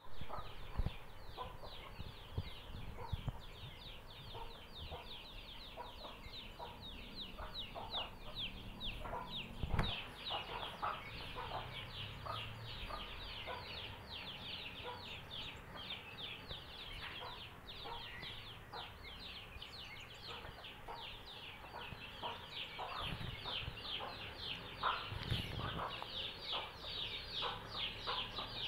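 A brood of chicks peeping without pause: a dense stream of short, high notes, each falling in pitch, many a second. A mother hen clucks now and then beneath them.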